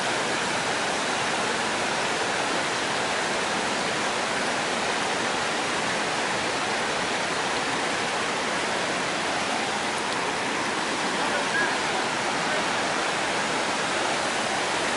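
Creek water rushing steadily over a shallow rocky riffle and a low dam's spillway, an even hiss of moving water.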